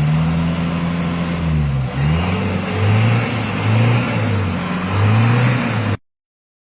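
Vehicle engine free-revving in place, as done for a smoke-belching emissions test: one long rev rising and falling in pitch, then three shorter revs. The sound cuts off abruptly near the end.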